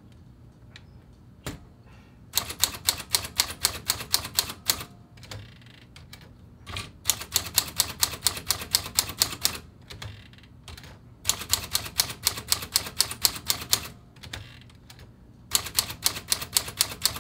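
Smith Corona Sterling manual typewriter being typed on in four quick runs of key strikes, about five a second, with short pauses between. The keys are being run through to test them, and every one strikes properly.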